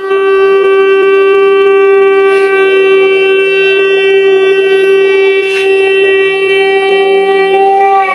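Conch shell (shankh) blown in one long, steady note that holds for about eight seconds and stops near the end.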